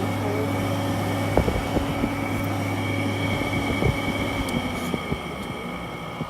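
Frigidaire 5000 BTU window air conditioner running: a steady low hum with a steady fan tone over it. A scatter of light knocks and clicks from the unit being handled in the middle, and the sound eases off toward the end.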